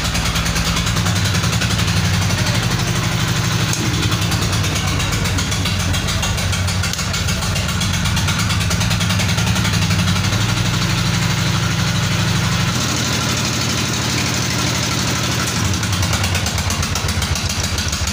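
Petter single-cylinder diesel engine running steadily while driving a belted generator to make electricity. Its low engine note shifts slightly about two-thirds of the way through.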